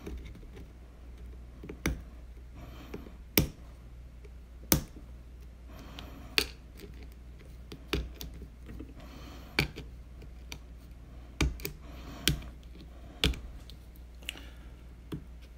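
Sharp metal clicks and soft scraping of a small bent metal tool picking at a ground-down handle rivet and its washer on a Spyderco Manix2 Lightweight knife. There are about ten clicks, roughly one every second and a half.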